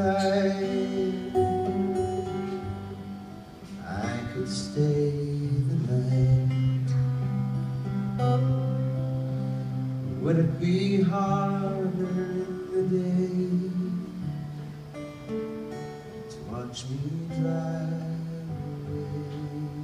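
Acoustic guitar strummed, with a man singing long held phrases over it.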